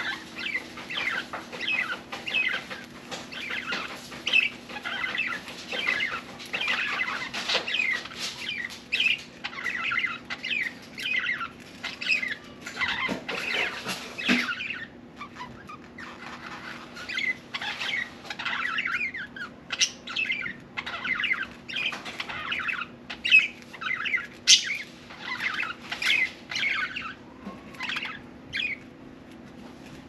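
Budgerigar chattering and warbling: a fast, unbroken run of short chirps, clicks and squeaky notes, with a brief lull about halfway through.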